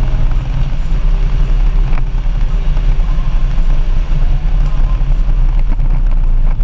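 Harley-Davidson Street Glide's V-twin engine running steadily as the motorcycle cruises, a deep rumble heard from behind the windshield.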